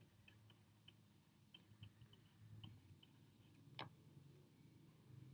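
Near silence with faint, irregular light ticks from a stylus tapping on a tablet screen during handwriting, and one slightly sharper click about four seconds in.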